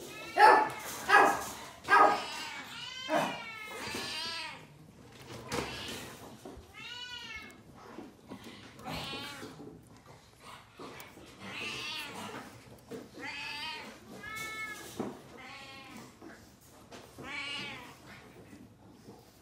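Japanese Chin puppies crying: high, thin squealing cries that arch up and fall away. A quick run of loud cries comes in the first two seconds, then one every second or two.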